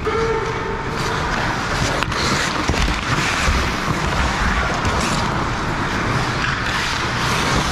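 Ice hockey play heard from the goal: skates scraping the ice and sticks clacking in a rink, with one sharp knock about two seconds in.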